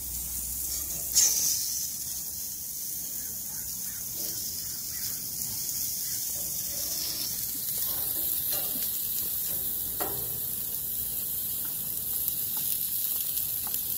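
Burger patties and onion slices sizzling on a gas grill's hot grates, a steady hiss, with a sharp clack about a second in and a few light clicks later.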